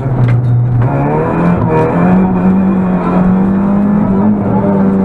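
Rally car engine heard from inside the cabin, loud and under load. Its pitch climbs between about one and two seconds in as the car accelerates, then holds steady and high.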